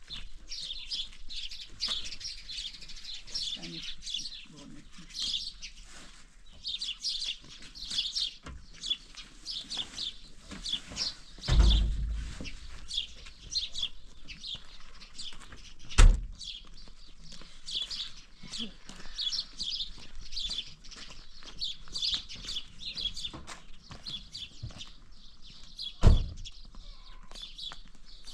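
Many small birds chirping busily and without pause. Three dull thumps cut through: two in the middle and one near the end.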